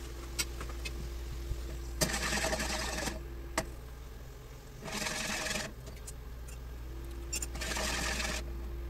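Frying pan of clam and white-wine sauce shaken on the stove in three short bouts, each a second or less, the liquid sloshing as it reduces. Under it runs a steady low hum with a faint steady tone.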